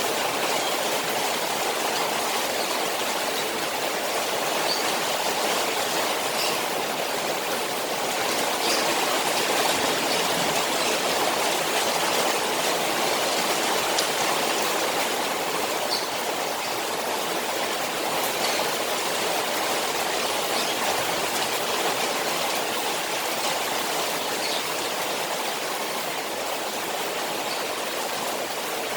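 Rain falling on a koi pond: a steady rush of water with faint scattered drop ticks.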